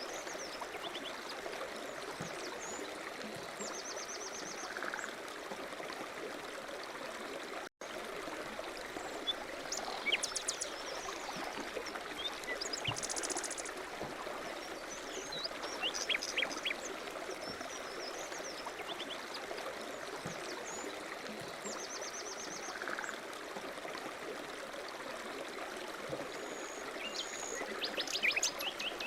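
Steady running water like a stream, with small birds chirping and trilling now and then over it. The sound drops out for an instant about eight seconds in.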